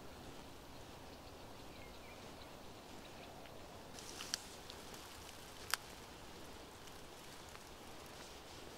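Faint, steady outdoor background hiss, broken by a few small ticks about four seconds in and one sharp click just before the six-second mark.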